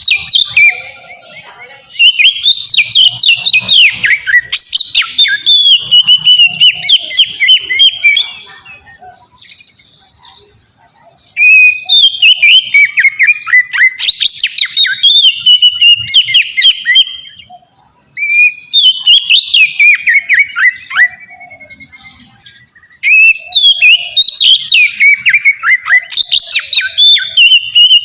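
Oriental magpie-robin (kacer) singing loudly: long phrases of rapid, varied whistled and chattering notes, each running several seconds, with pauses of a few seconds between them.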